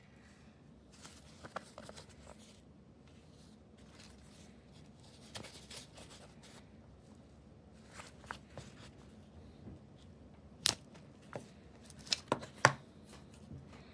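A knife and its sheath being handled, with scattered rustles and light clicks, then several sharp clicks in the last few seconds.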